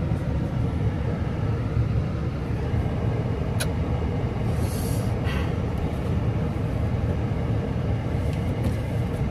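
A steady low rumble, with a single sharp click about three and a half seconds in and a short hiss around five seconds.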